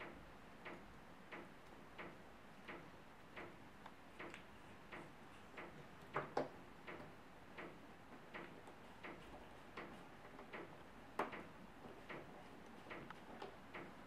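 Screwdriver driving a small screw into a power-supply board's heat sink, giving faint, regular clicks about three every two seconds. Two of the clicks are louder, about six and eleven seconds in.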